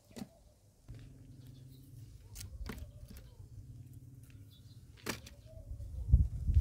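Dry wood and roots being laid into the fire pit of an earthen clay oven: a few sharp knocks and clicks of wood on wood and clay, with a heavier low thump near the end. A faint steady hum runs underneath for a few seconds partway through.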